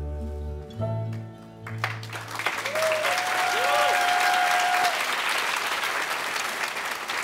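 The closing chord of the dance music dies away. Then an audience breaks into applause about two seconds in, with someone cheering over the clapping for a couple of seconds.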